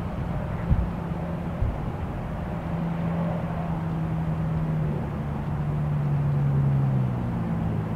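Low drone of a distant engine, a few steady tones whose pitch shifts slowly and swells a little toward the end. Two short knocks come in the first two seconds.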